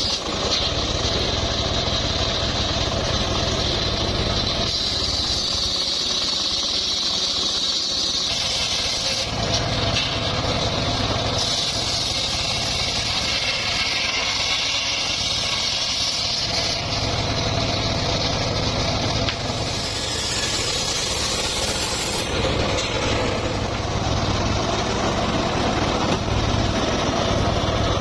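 Engine-driven saw machinery cutting mahogany wood, running continuously. Its sound shifts every few seconds as the load changes.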